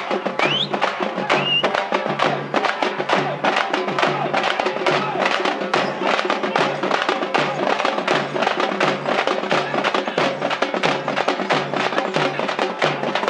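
A group of Tamil thappu (parai) frame drums beaten with sticks in a fast, unbroken rhythm, the dense sharp strokes running over a repeating lower beat.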